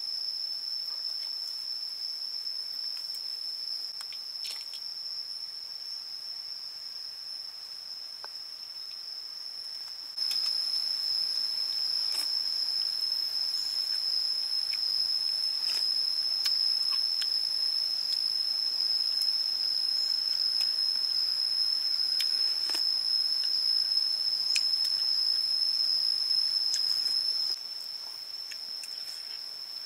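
Insects singing in one steady, high-pitched continuous tone. It is louder from about ten seconds in until near the end, with a few faint clicks scattered through it.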